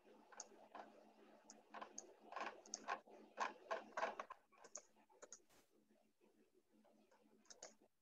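Computer keyboard typing with clicks, faint and irregular, busiest in the middle, over a faint steady hum.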